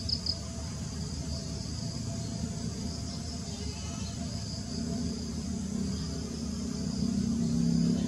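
Steady high-pitched insect drone, cricket-like, over a low background rumble, with three quick high chirps right at the start.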